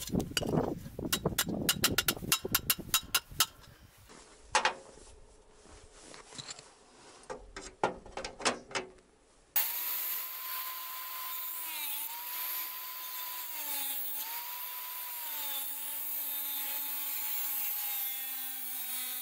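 Hammer blows on metal, quick strikes for about three and a half seconds, then a few scattered ones. About ten seconds in, an electric angle grinder takes over, running and cutting, its whine dipping in pitch each time the disc bites.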